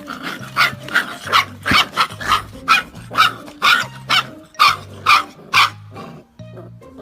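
A dog barking rapidly, about a dozen barks at roughly two a second, stopping near the end, over background music.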